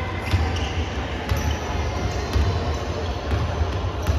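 A basketball bouncing on an indoor court, sharp knocks about once a second over the steady low rumble of the gym hall.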